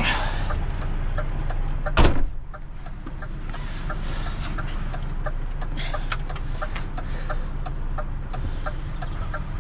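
Heavy recovery truck's diesel engine idling steadily, with a light regular ticking over it and one loud clunk about two seconds in.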